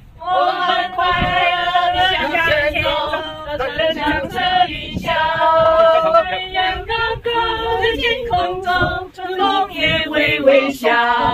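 Several voices, men and women, singing together without clear accompaniment.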